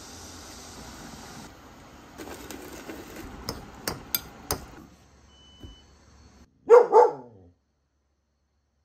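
A few light clicks and knocks of kitchen utensils, then a dog barks twice in quick succession near the end.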